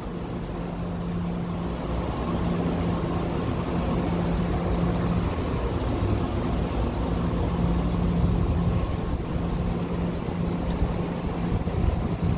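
Steady low hum of a running vehicle over a constant noise haze, with rustling from the phone being moved.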